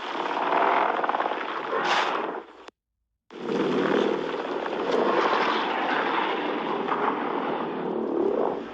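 Godzilla's roar sound effect, 2021 version, played twice: a roar of about two and a half seconds, a brief silence, then a long roar of nearly six seconds.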